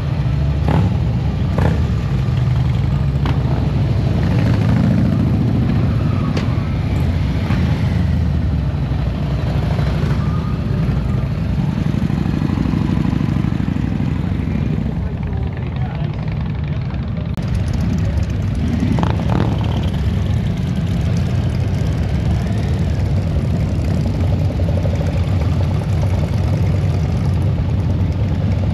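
Motorcycle engines rumbling as bikes ride past, with people's voices mixed in.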